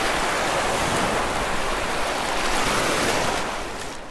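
Steady rushing noise of surging water and wind, like spray from a fast boat's wake, fading out near the end.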